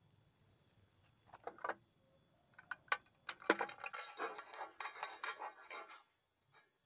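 Clear plastic compartment box being handled: a few sharp clicks, then a dense run of irregular plastic clicks and rattles that stops abruptly about six seconds in.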